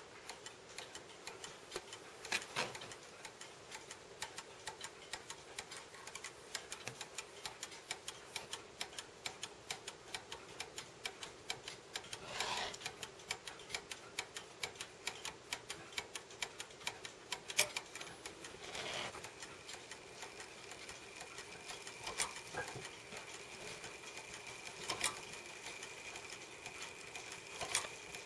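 A bare 1910s Junghans wall-clock movement ticking rapidly and steadily, with a few louder clicks and knocks from the mechanism scattered among the ticks.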